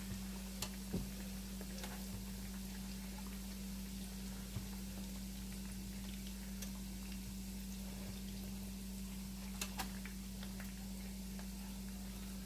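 Breaded chicken cutlets frying in canola and olive oil over medium-high heat: a soft, steady sizzle with a few sharp pops, about a second in and again near ten seconds, over a steady low hum.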